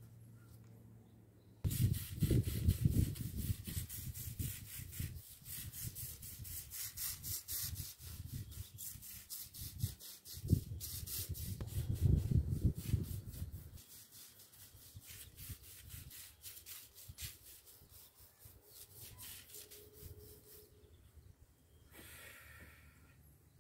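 Manual knapsack sprayer at work on an orange tree, applying a fungus treatment: a quick run of rubbing, scraping strokes from the hand pump and spray. It starts about two seconds in, is loudest for the first dozen seconds, then fades and stops a couple of seconds before the end.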